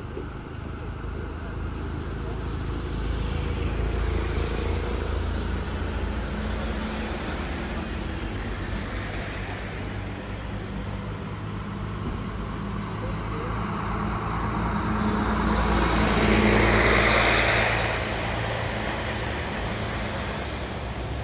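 A convoy of police riot-unit vans and buses driving past slowly with engines running, the engine and tyre noise swelling as each vehicle passes; the loudest pass comes about 16 to 17 seconds in.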